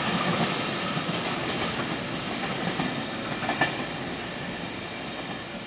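Freight train running away along the track, its wheels clacking over rail joints while the rumble fades steadily; a sharper joint click about three and a half seconds in.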